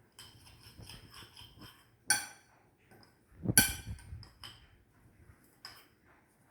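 A spoon scraping and clinking against a mixing bowl as grated carrot mixture is stirred, with two sharper ringing knocks, about two seconds in and about three and a half seconds in, the second the loudest.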